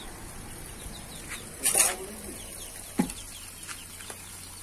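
Faint, repeated high peeping of a chick, many short downward chirps. A short rustling hiss comes about two seconds in, and a single sharp knock about three seconds in.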